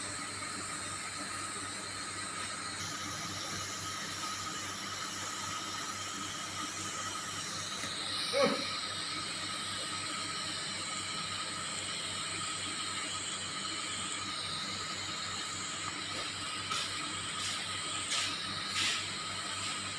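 TIG (argon) welding arc on thin stainless steel pipe, hissing steadily with a faint steady high tone, with one sharp click about eight seconds in and a few softer crackles near the end.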